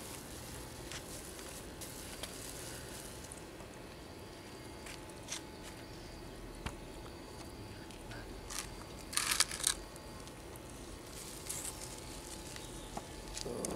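Puppies eating from a bowl and a plastic sausage wrapper being peeled and crinkled: soft crunching with scattered small crackles and a short burst of sharp crackling about nine seconds in.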